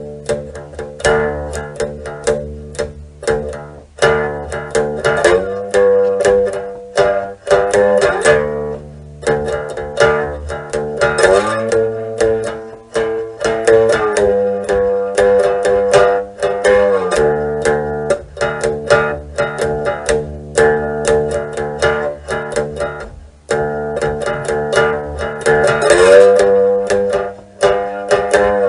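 Background music: guitar-like plucked strings picking quick notes over steady held chords.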